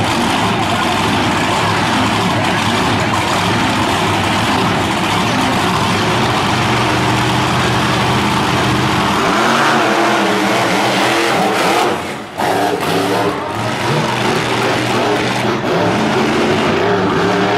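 Monster truck engines running loud, then revving hard about nine seconds in as the trucks take off along the course. The sound dips briefly about twelve seconds in before the revving picks up again.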